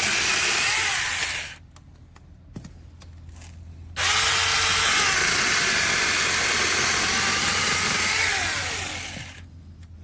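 Battery-powered mini chainsaw running, its pitch shifting as it cuts wood. It stops about a second and a half in, starts again suddenly about four seconds in, and runs for about five seconds before winding down.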